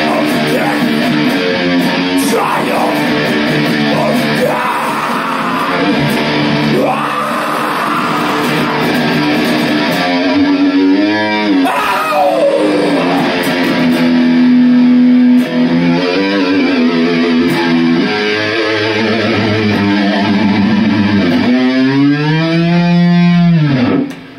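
Distorted electric guitar playing heavy metal riffs of held power chords. A long wavering, bending note comes about eleven seconds in and again near the end, and the playing cuts off suddenly just before the end.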